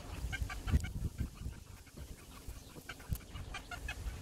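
Soft thumps and knocks of chicken drumsticks being pressed into a metal tray of seasoned flour, with short repeated clucking calls in several quick runs.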